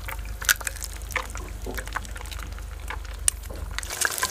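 Eggs frying in hot oil in a frying pan: scattered pops and crackles of sizzling that grow denser near the end, over a low rumble that stops near the end.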